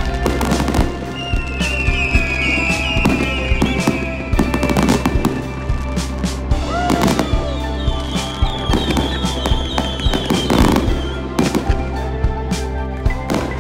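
Aerial fireworks display: a rapid, irregular run of sharp bangs and crackling bursts, with music playing underneath.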